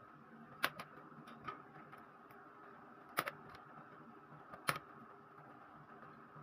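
A handful of short sharp clicks and taps, the loudest about half a second in, around three seconds in and near five seconds, over a faint steady hum: the kind of small knocks made when handling tools and small parts.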